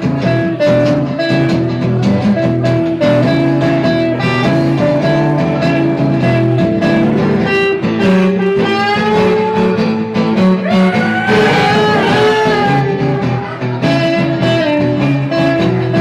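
Live band playing an instrumental passage with guitar to the fore; about halfway through, a lead line bends and wavers in pitch.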